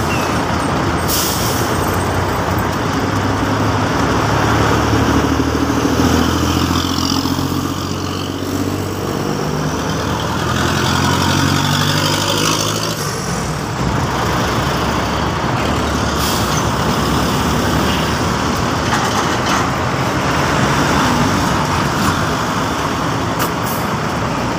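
Highway traffic of heavy diesel trucks and cars passing. A truck's diesel engine runs close by for roughly the first half, a steady low drone that drops away about halfway through.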